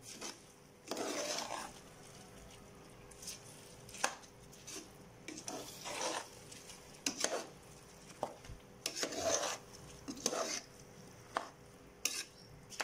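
A spoon stirring raw rice into a thick chicken masala in a metal pot: irregular scraping strokes against the pot, with short clicks of the spoon on its side.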